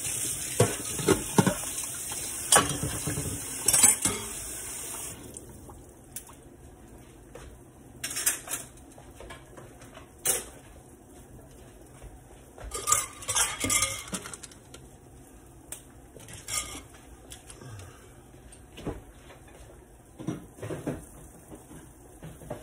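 Metal kitchenware clinking and clattering: a spoon and a stainless steel pot lid knocking against pots and the cutting board in scattered, separate knocks. A frying hiss with quick clicks runs for the first few seconds and stops about five seconds in.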